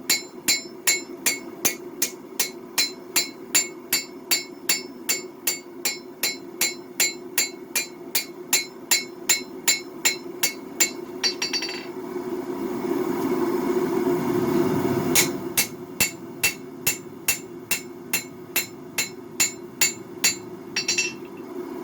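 Hand hammer striking hot Damascus steel on an anvil in an even rhythm of about two and a half blows a second, drawing out and shaping a knife blade, with a quick flurry of light taps twice. About halfway through the blows stop for roughly three seconds, and a steady low rushing, the propane forge's burners, comes up before the hammering resumes.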